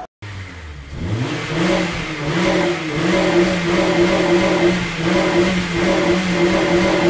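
Car engine sound effect: the engine comes in about a second in and revs up, then runs with its pitch rising and falling in gentle waves, and cuts off abruptly near the end.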